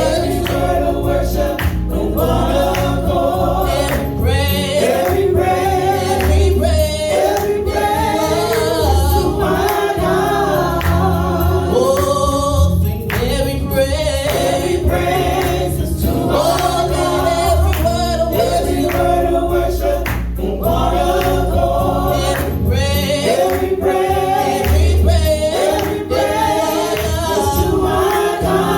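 Gospel choir singing with band accompaniment, a steady bass beat underneath.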